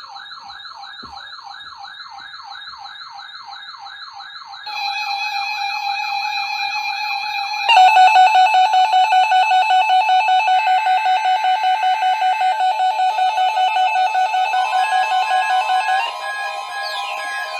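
Several NOAA weather alert radios sounding their alarms for the weekly test. A fast warbling siren tone is joined about four and a half seconds in by a steady tone, and about eight seconds in by a louder, rapidly pulsing beep. Near the end the tones change and a falling glide sounds.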